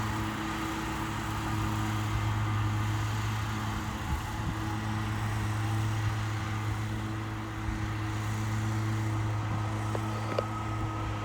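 Steady engine hum at a constant pitch, unchanging throughout.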